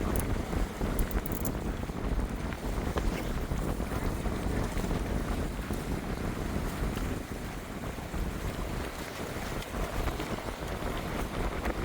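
Wind buffeting the microphone in a steady low rumble, with ocean surf beneath it.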